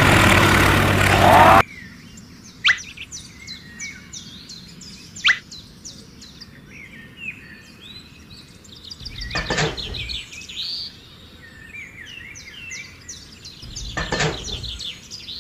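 The model tractor's small motor runs noisily for about a second and a half, then cuts off abruptly. Birds chirp after that, with two sharp clicks and, about nine and fourteen seconds in, two short scraping handling noises as metal cage wheels are pushed onto the rear tyres.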